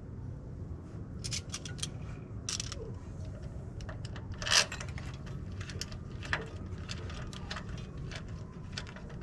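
Small metal hand tools clicking and scraping against metal in irregular sharp ticks, with one louder click about four and a half seconds in, over a steady low hum: hand work on a helicoil thread repair in an aluminium timing cover.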